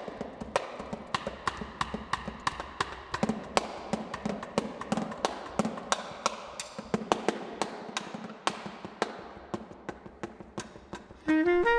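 Drumsticks striking a snare drum muffled by a towel laid over the head: a free-jazz solo of dry, irregular strokes, a few a second, with occasional louder accents. Near the end a bass clarinet comes in with a loud held note.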